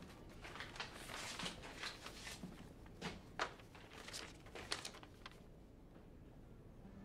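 A sheet of paper being handled and unfolded: a run of crisp rustles and crackles that dies away about five seconds in.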